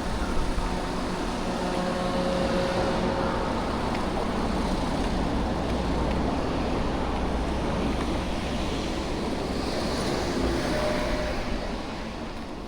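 Road traffic going past: a steady wash of car noise that eases off near the end.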